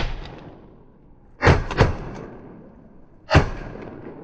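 Shotgun blasts fired at geese: one at the very start, two in quick succession about a second and a half in, and another just past three seconds.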